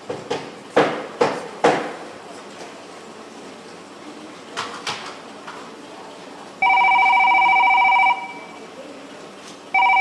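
Telephone ringing over a steady line hiss: a run of sharp clicks, then a steady multi-tone ring lasting about a second and a half, and a second ring starting near the end, a call about to be answered.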